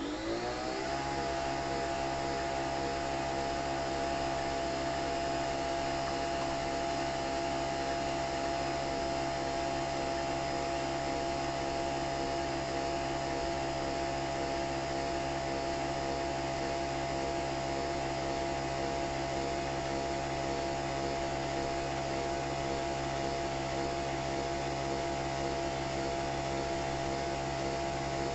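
Nespresso Vertuo Next coffee machine brewing: its motor spins up with a rising whine over about the first second, then runs with a steady whir.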